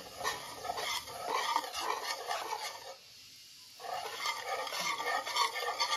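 A utensil stirring and scraping a thick flour paste in a bowl as coconut water is worked in a little at a time. The strokes are rough and irregular, with a pause of about a second near the middle.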